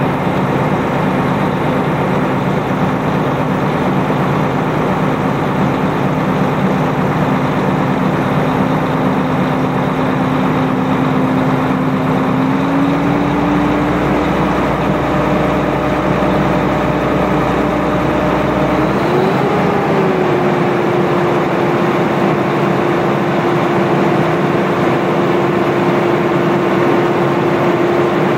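Mack dump truck's diesel engine idling steadily. Its pitch steps up slightly about twelve seconds in, and again with a brief rise and settle near twenty seconds.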